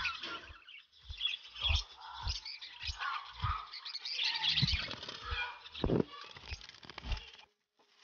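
Budgies chirping and cheeping continuously in a crowded nest box with chicks, mixed with a string of short dull bumps and rustling.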